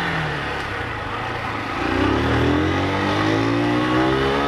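Motorcycle engine accelerating hard, its pitch climbing steadily and getting louder from about two seconds in.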